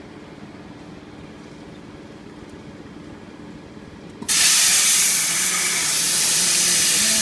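CNC cutting machine's torch firing up and piercing steel plate: a sudden loud, steady hiss that starts about four seconds in and runs on as the cut begins. Before it there is only a low, quiet hum.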